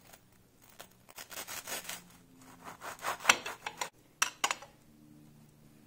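Knife sawing through toasted bread on a plate, cutting a toast sandwich in half: bursts of short strokes about a second in, again around three seconds in, and a last few just after four seconds.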